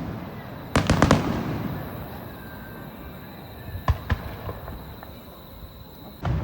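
Aerial fireworks shells bursting: a quick cluster of several bangs about a second in, trailing off in a long rumbling echo, then two sharp cracks around four seconds and another bang near the end.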